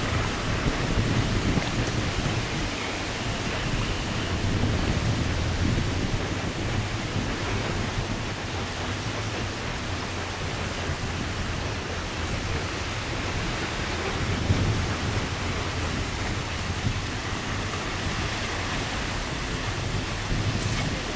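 Steady rushing noise of swollen floodwater in a stream, with a low rumble of wind buffeting the microphone.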